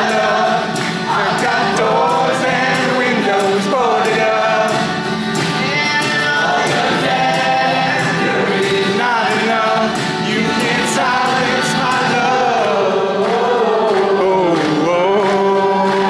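Several men singing together in harmony at a live rock concert, with acoustic guitar and a steady beat of light ticks.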